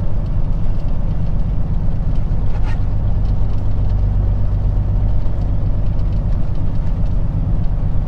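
Peterbilt 379 tractor's diesel engine running steadily at low speed, heard from inside the cab as a continuous low rumble.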